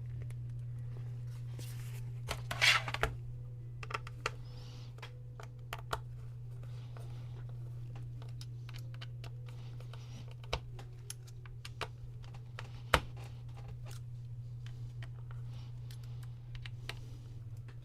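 Scattered light clicks and taps of a laptop being handled, likely its lid and freshly repaired hinge being worked, with a louder scraping rustle about two and a half seconds in, over a steady low hum.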